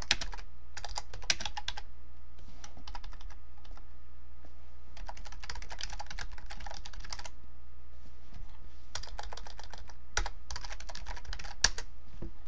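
Computer keyboard typing in several bursts of quick keystrokes with short pauses between them, a couple of sharper key presses near the end, over a steady low hum.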